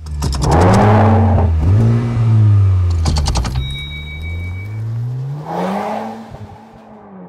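A car engine sound effect under the opening logo: the engine revs up and down with its pitch rising and falling, swells again near the end, then fades. There are rapid clicks about half a second in and again around three seconds, and a brief pair of high steady tones.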